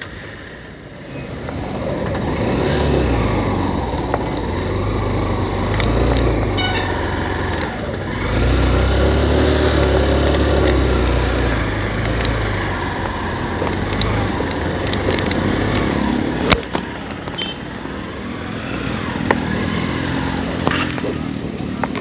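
Motorcycle engine running as the bike is ridden slowly through loose beach sand, its engine speed rising and falling. The sound builds after the first couple of seconds and is loudest around the middle, with scattered clicks and rattles.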